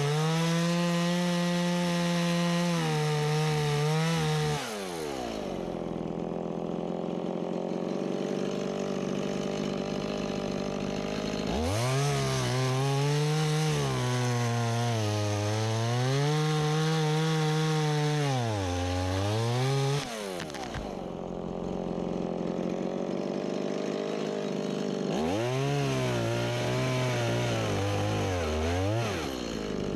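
Stihl MS170 two-stroke chainsaw cutting wood at full throttle in three bouts, its pitch wavering and sagging as the chain loads up in the cut. Between bouts it drops back to a lower idle.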